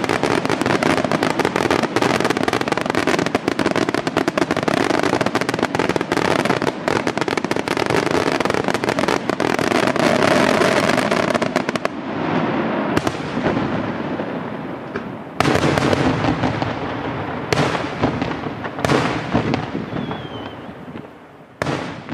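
Aerial fireworks display: a dense barrage of rapid crackling bursts and bangs for about twelve seconds, then thinning to a handful of separate loud shell bursts, each followed by a rolling echo.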